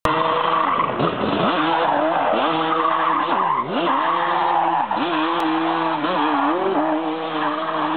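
Yamaha Banshee quad's twin-cylinder two-stroke engine revving hard, the revs dropping and climbing again over and over, with the rear tyres skidding on asphalt in a burnout.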